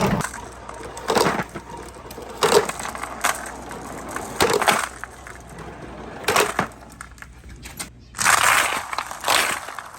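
Marbles and balls rolling and clattering down handmade wooden marble-run ramps, in separate bursts every second or two. The longest and loudest rattle comes near the end.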